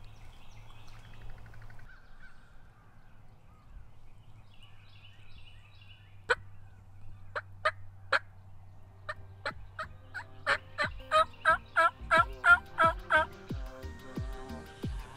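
Turkey yelping: a few single notes spaced apart, then a loud run of about a dozen quick yelps, three to four a second, near the end.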